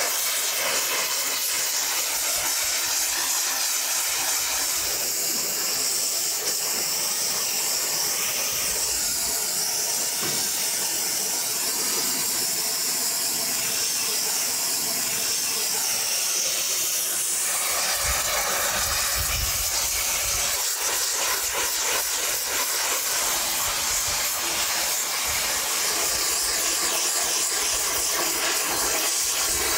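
Hose-fed handheld gas torch burning with a steady hiss as its flame singes beef hooves on a grill. The sound gets deeper and fuller about two-thirds of the way through.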